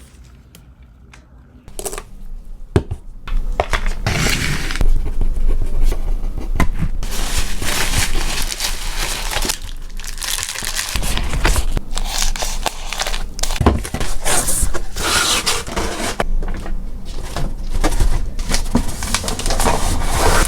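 Packing material being crinkled and crumpled by hand as an order is wrapped. A few light clicks at first, then dense, continuous crinkling from about three seconds in.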